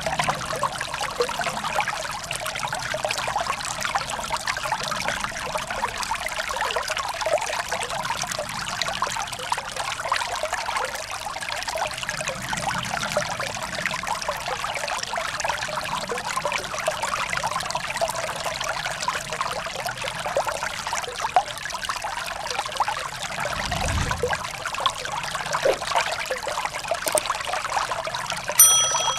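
Shallow stream rushing and splashing over rocks and ice, a steady rush of water. Near the end a short electronic chime rings out.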